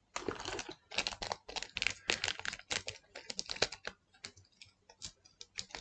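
Digimon Card Game trading cards being flicked through one at a time in the hand, with quick irregular card-edge clicks and slides that thin out near the end.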